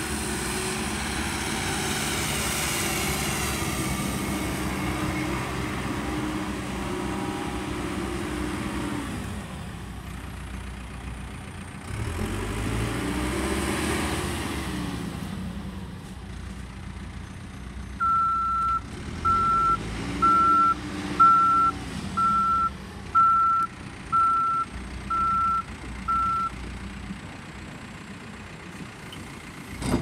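Caterpillar backhoe loader's diesel engine running and revving up and down as the machine is driven about. A little past halfway its reverse alarm beeps about nine times, evenly spaced, on one steady tone.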